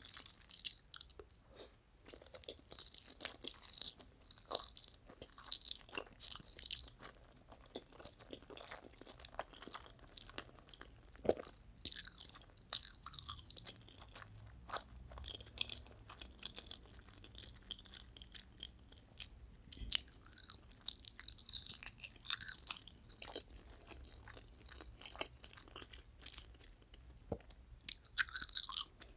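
Close-miked chewing of a mouthful of spicy noodles, with wet mouth smacks and crisp crunchy clicks coming irregularly throughout. There is one sharper, louder click about twenty seconds in.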